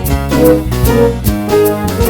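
Instrumental break of a song: guitar and keyboard playing over a steady beat.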